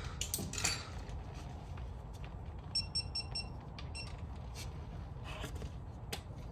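A quick run of five short electronic beeps about three seconds in, and a single beep a moment later, over scattered light clicks and knocks.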